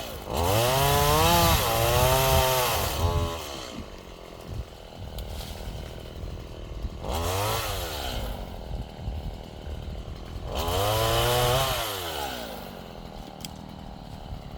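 Chainsaw engine revved up and let back down to idle three times, the first burst the longest, with idling between bursts.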